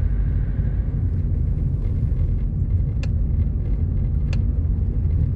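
Steady low rumble of road and engine noise heard from inside a moving vehicle's cabin. Two light ticks come about three and four seconds in.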